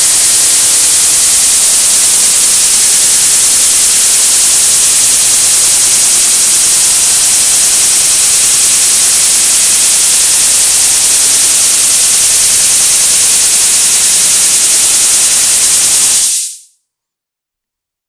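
Loud steady static hiss in the sound feed, strongest in the high treble. It fades out abruptly about sixteen seconds in, leaving dead silence.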